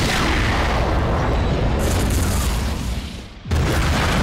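Movie sound effects of train-wreck explosions: a heavy blast rumbling deep for about three seconds and dying down, then a second explosion starting suddenly about three and a half seconds in.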